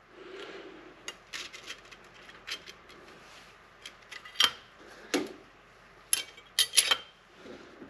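Transmission clutch plates, steel and friction discs wet with fluid, clinking and clicking as they are stacked by hand onto a 47/48RE overdrive clutch hub: scattered light clicks, the loudest coming in a cluster from about four to seven seconds in.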